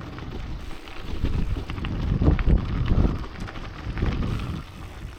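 Wind buffeting the microphone in gusts, swelling loudest a couple of seconds in, while riding a gravel bike.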